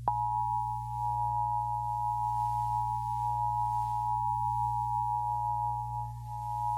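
The two-tone attention signal of the US Emergency Alert System: a steady, unwavering dual-pitch alarm tone that starts abruptly and holds, over a low hum.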